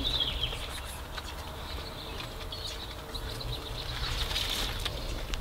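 Faint birds chirping in the background, a few short calls near the start and again toward the end, over a steady low rumble.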